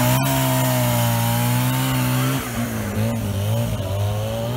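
Norton twin-rotor Wankel motorcycle engine running as the bike is ridden at low speed, with an even buzzing note. It holds steady revs, drops off about halfway through, then picks up again near the end.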